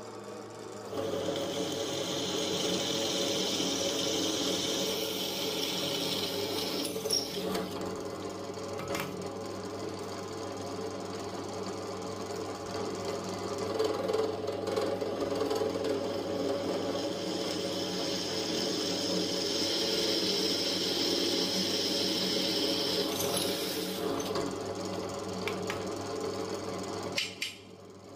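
Metalworking equipment running continuously, starting abruptly about a second in and cutting off suddenly near the end, over a steady low hum.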